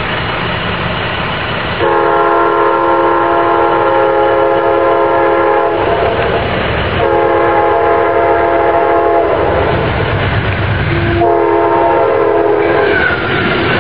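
Amtrak GE P42 locomotive's K5LA five-chime air horn sounding for a grade crossing as the train approaches at speed: two long blasts and a shorter third. Near the end the train rushes past close by, with a faint falling wheel squeal.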